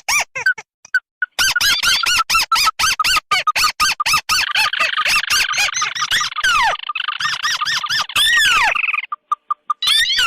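Bird lure recording of tikusan crakes, red and white calls combined: fast series of short chirping notes, several a second. Near the middle the calls overlap into a dense chatter with a few falling glides, then drop back to single notes near the end.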